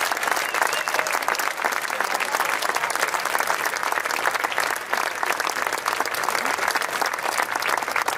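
A large crowd applauding: dense, steady clapping from many hands.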